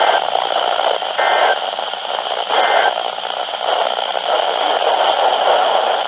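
Weather radio receiver hiss and static between broadcasts. Three short, faint bursts of two-tone digital data about 1.3 seconds apart sit under the hiss, typical of the SAME end-of-message code that closes an alert.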